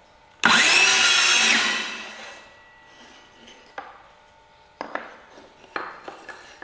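Handheld circular saw switched on with a sudden burst, cutting through a piece of pine for about a second and then winding down. A few sharp knocks follow near the end.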